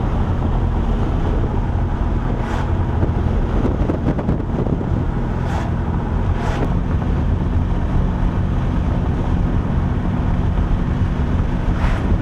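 Old muscle car cruising at steady speed, heard inside the cabin: an even engine drone under loud road and wind noise, with a few faint knocks.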